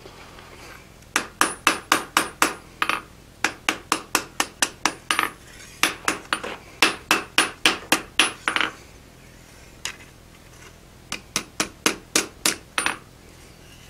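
Blacksmith's hand hammer striking a red-hot draw knife blank on an anvil, light straightening blows at about four a second, in four runs broken by short pauses, with a single blow near the middle. Each strike gives a short metallic ring from the anvil.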